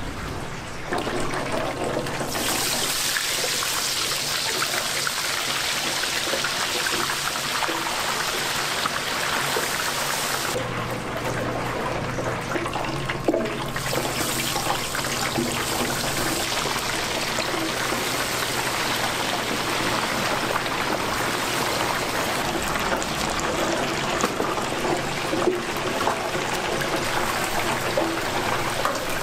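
Hot oil sizzling and bubbling around whole chickens being deep-fried, a steady hiss that swells about a second in, with a single sharp knock of metal midway.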